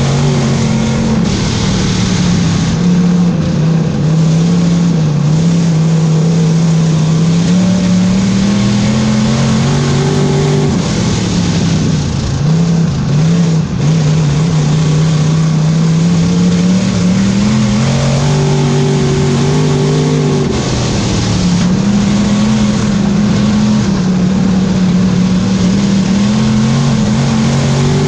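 Dirt-track Thunder Car's race engine heard from inside the cockpit, running hard at racing speed. Its pitch dips twice as the throttle eases and then climbs back, over a steady rushing noise.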